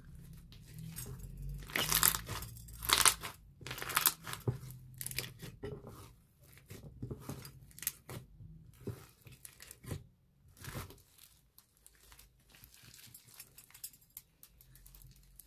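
Thick black slime studded with beads being stretched, folded and squeezed by hand: irregular sticky crackling and popping, with a few louder tearing crackles about two to four seconds in.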